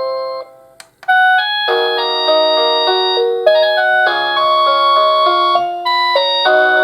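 AVANTEK D-3B wireless doorbell receiver playing its electronic chime tunes: one tune fades out, there is a click and a brief pause, and about a second in the next multi-note melody starts and plays on.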